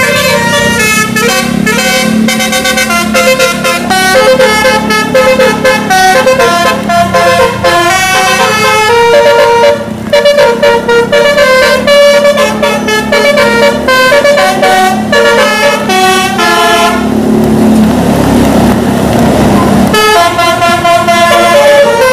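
Sumber Jaya bus's musical telolet air horn playing a quick tune of short, changing notes. About three-quarters of the way through it breaks off for roughly three seconds, leaving a rushing noise, then starts again.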